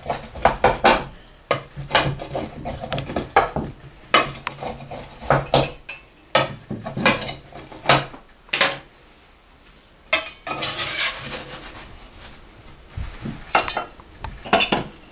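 Metal pizza cutter and spatula clicking, knocking and scraping against metal pizza pans as pizzas are cut and a slice is served onto a plate, with a longer scrape about ten seconds in.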